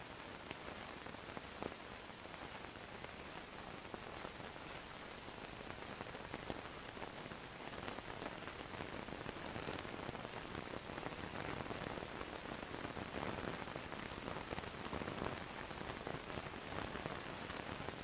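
Steady hiss with many small crackles and pops throughout: the surface noise of an old 16mm film print's transfer, getting slightly louder about halfway through.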